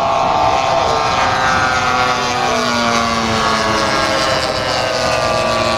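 Several giant-scale radio-controlled warbird models flying past together, their propeller engines running as one layered drone. The engine notes fall slowly in pitch as the formation passes.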